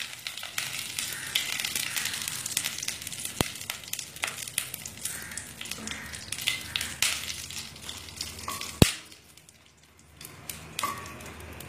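Whole cumin seeds, bay leaves and a dry red chilli crackling and sizzling in hot vegetable oil for a Bengali tempering (phoron). A single sharp click stands out about nine seconds in, after which the crackle drops away for a moment and comes back fainter.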